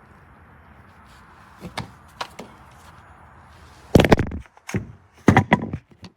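Handling knocks and clatter: a couple of light clicks, then two short, loud bursts of knocking about a second apart near the end.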